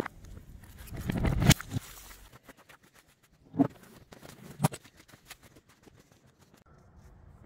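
A metal latch on a wooden door clicks, then the door is handled with a loud rattling clatter. Two sharp knocks about a second apart come midway, followed by light footsteps.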